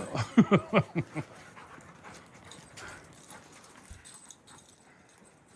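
A dog giving a quick run of about six short, pitched yelps in the first second or so of rough play, then only faint scuffling.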